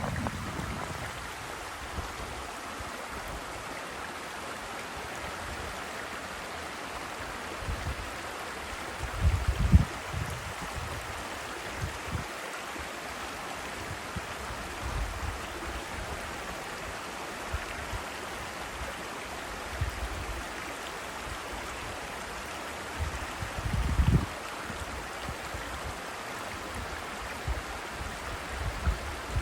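Steady rush of water from a small seasonal mountain waterfall and its stream. Brief low rumbles come and go, the strongest about ten seconds in and again near twenty-four seconds.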